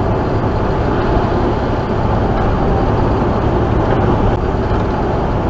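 Steady engine and road noise inside the cab of a Mack tractor-trailer cruising at highway speed.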